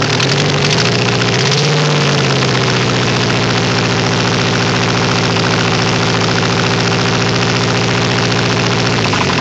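Toyota 22RE 2.4-litre four-cylinder engine idling; its speed wavers briefly in the first couple of seconds, then settles to a steady idle. The owner hears a faint bird-like chirp from it and knows of an exhaust leak; out-of-adjustment valves have been suggested as the cause.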